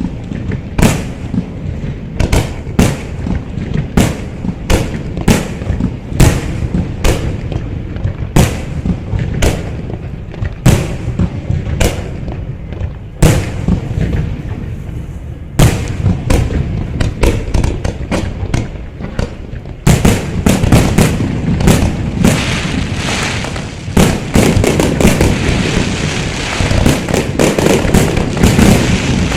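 Fireworks going off: a steady run of sharp bangs, roughly one or two a second over a low rumble, building about two thirds of the way through into a dense crackling barrage of rapid bangs, as in a finale.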